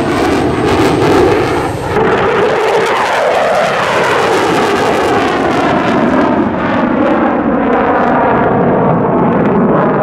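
Fighter jet engine noise. About two seconds in it switches to an F-15E Strike Eagle's twin engines in afterburner as the jet climbs away, a dense roar with a shifting, phasing sound that grows duller and more distant as the high end fades.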